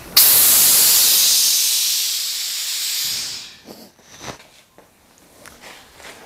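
Air-ride suspension on a 1939 Hudson truck dumping its airbags to lower the truck: a loud hiss of escaping air that starts abruptly and fades out over about three and a half seconds, followed by a couple of light knocks.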